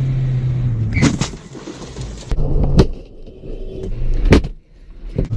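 A car's engine running, heard from inside the cabin, broken by three loud thuds about a second and a half apart.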